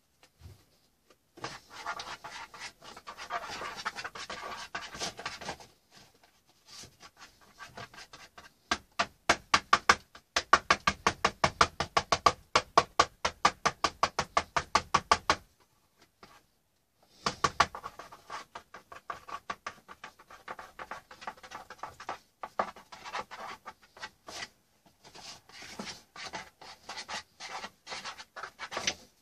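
Paintbrush scrubbing and slapping wet paint across a painted panel, in bursts of strokes with short pauses. In the middle comes a steady run of quick strokes, about four or five a second.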